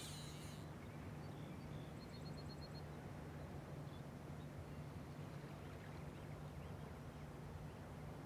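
Quiet shoreline ambience: a steady low hum under faint, scattered bird chirps, with a quick run of about six high bird chirps about two seconds in. A short hiss at the very start.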